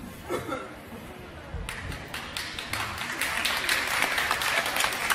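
Audience applause that starts about a second and a half in and grows louder, with a brief voice near the start.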